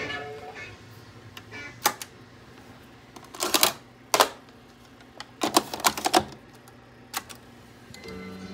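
Sharp mechanical clicks and clunks of hi-fi gear being handled: a receiver's controls switched, then an 8-track tape cartridge pushed into an 8-track deck, a cluster of clunks a little past the middle. Music from the tape starts near the end.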